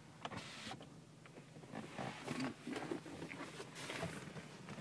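Faint rustling and a few light clicks and knocks from a handheld camera being moved about in a car's back seat.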